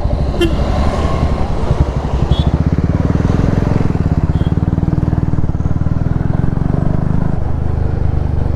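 Motorcycle engine running under way, its note rising from about three seconds in as it picks up speed. There is a short horn beep just after the start.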